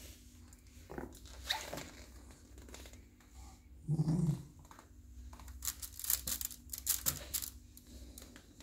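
Small dog rummaging in a wicker basket of plush and rubber toys: rustling and scraping of toys against the wicker, in a flurry of quick strokes in the second half. About four seconds in the dog gives one short, low vocal sound.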